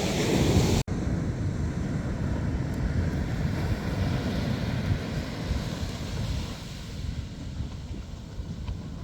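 Wind buffeting the microphone over the wash of surf on the shore. Less than a second in, the sound drops out for an instant, as at a cut in the recording.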